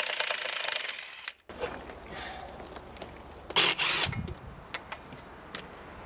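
Cordless impact wrench hammering for about a second and a half as it undoes the nuts on a tractor's rear wheel, stopping abruptly. A second, shorter burst comes about three and a half seconds in, followed by a low thud.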